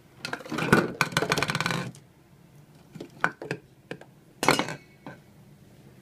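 Hard plastic clatter and clicks as a coffee grinder and its power cord are handled: a dense rattle over the first two seconds, then a few scattered clicks and a short rattle about four and a half seconds in. The motor is not running.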